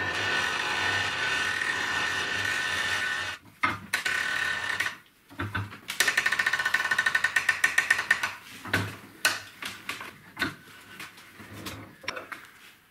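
A hand-held power tool running steadily on metalwork, then stopping, starting again briefly and stopping. This is followed by a quick run of rapid metallic clicks and then a few scattered clicks and knocks of metal.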